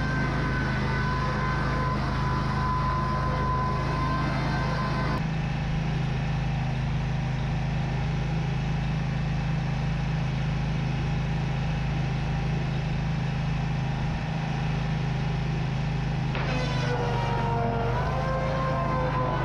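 Wood-Mizer board edger running steadily, its engine droning under the whine of the spinning saw blades as cedar boards are edged. The whine changes about five seconds in and again near the end.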